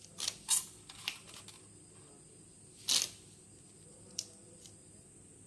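A few short, sharp clicks and snaps: a cluster in the first second and a half, the loudest just before three seconds in, and one more about four seconds in.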